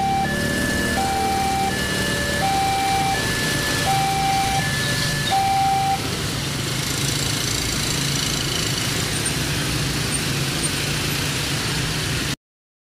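Railroad level-crossing warning alarm sounding a two-tone signal that alternates about every 0.7 seconds. It stops about six seconds in, once the train has cleared. After it, many motorcycle engines run and pull away in a steady traffic rumble until the sound cuts off suddenly near the end.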